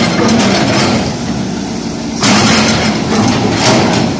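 Backhoe engine running steadily, with loud noisy surges about two seconds in and again near the end.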